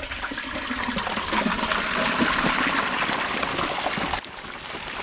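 Hot oil in a turkey deep fryer sizzling and bubbling hard as the whole turkey goes into it. The moisture in the bird boils off in a loud hiss that builds, then drops off suddenly about four seconds in.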